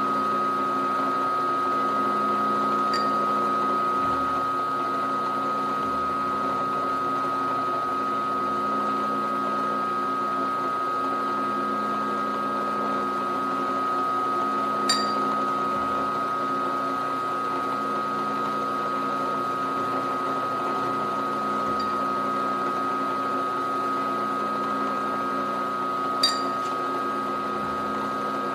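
Milling machine spindle running steadily with a constant high whine over a lower hum while a countersink chamfers holes in a steel bar. Three short sharp clicks come at widely spaced moments.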